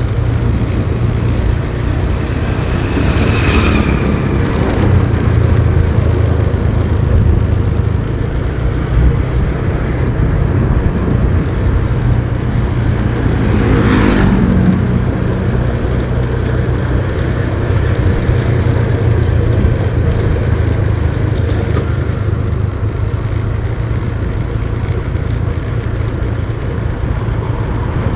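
Motorcycle running at road speed on a downhill ride, heard with a steady low rumble of wind and road noise. About 14 seconds in, a short whine falls steeply in pitch, with a fainter one early on.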